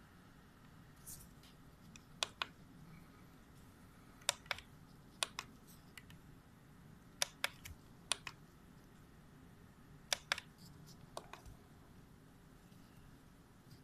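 Sharp light clicks, mostly in quick pairs or threes, coming every second or two at an uneven pace over faint room hiss.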